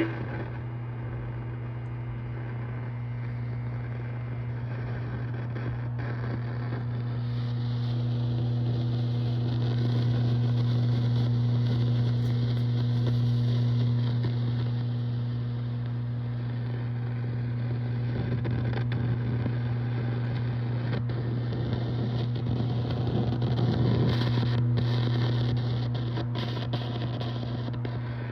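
Mesa/Boogie Mark V guitar amplifier giving off a steady low hum, with a rushing, wind-like hiss that swells and fades and a few sharp crackles. This is the unwanted noise of a faulty new amp.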